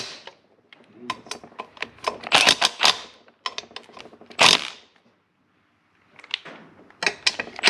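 Loose metal bolts and washers clinking and clattering as they are handled and sorted, in several bursts of quick clicks with a short pause about five seconds in.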